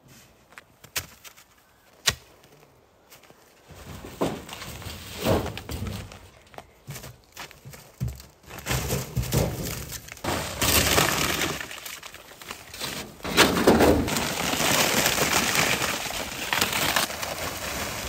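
Dry branches, twigs and pine needles crunching and crackling as they are pulled about, with knocks and scrapes from rusty metal sheets being moved aside. A few sharp knocks come in the first seconds, then the crunching grows louder and more continuous.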